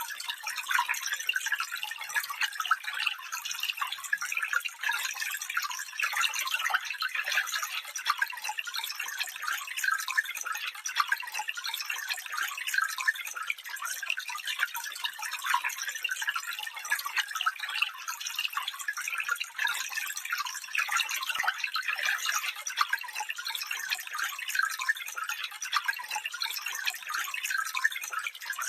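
A small stream trickling and babbling over stones, a steady light splashing with no low rumble.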